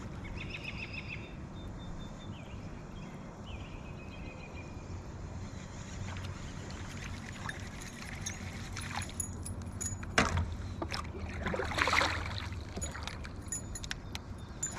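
Open-water ambience around a kayak: a steady low hum with short chirps early on, a sharp knock about ten seconds in, and a brief rush of noise about twelve seconds in.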